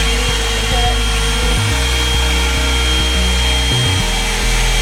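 Revlon 2-in-1 hot-air dryer brush running steadily on its high heat setting, a continuous fan whir with a thin high whine.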